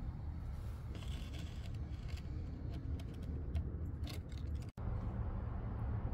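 Light metallic clinks and rattles of tools and a steel jack stand being handled, a few scattered clicks over a steady low rumble. The sound drops out for an instant near the end.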